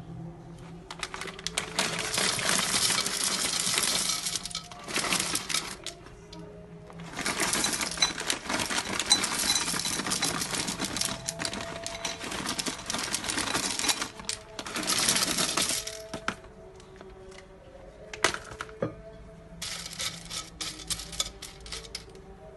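Raw penne poured from a plastic bag into a glass bowl: a dense rattle of hard pasta pieces in two long pours, the second lasting about nine seconds. Near the end, scattered clicks as the dry penne is scooped with a spoon into a clay tagine.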